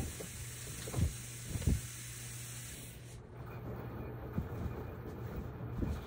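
Towels being handled and folded: a few soft thumps and rustles of cloth over a steady low hum and hiss. The hiss drops away suddenly about halfway through.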